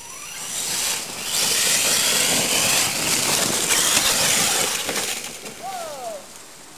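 Radio-controlled monster truck speeding past close by, its motor whining and its tyres churning dirt and leaves. The noise swells about a second in and fades after about five seconds, and short falling whines follow near the end.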